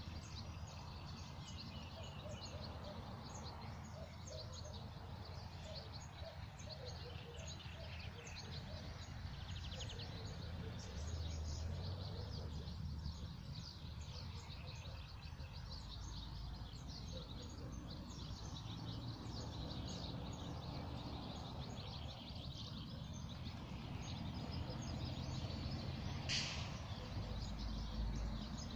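Several small birds singing and chirping, with many short high calls overlapping throughout, over a steady low background rumble.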